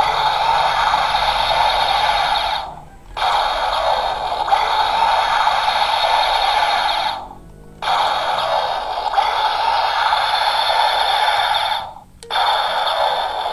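Electronic music and sound effects of a DX Ultraman Trigger toy, Sky Type Hyper Key sounds, played through the toy's small tinny speaker. The sound plays in runs of about four seconds, fading out and starting again three times.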